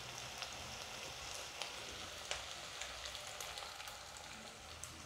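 Sautéed vegetables sizzling quietly in hot coconut oil in a nonstick pot, a steady low hiss with small scattered crackles, as a thick ground coconut paste is poured over them.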